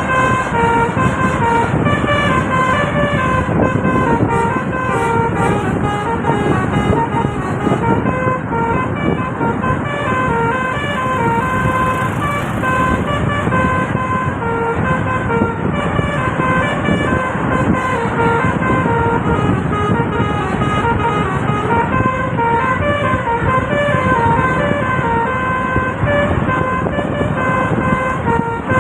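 Basuri multi-tone 'telolet' horn on a tourist bus playing a quick tune of short stepped notes, repeated over and over, over a steady low noise.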